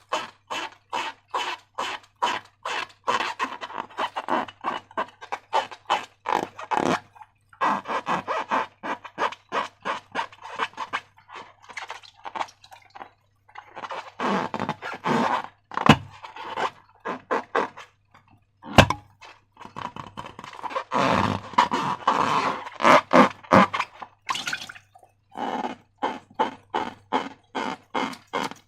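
Slime being squeezed and worked by hand: quick, wet, sticky clicks about three a second, coming in runs with brief pauses.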